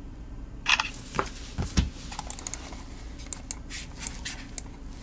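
Plastic Razer Orochi V2 mouse being picked up and handled on a silicone mat: a string of light clicks and taps with a couple of dull knocks, starting just under a second in.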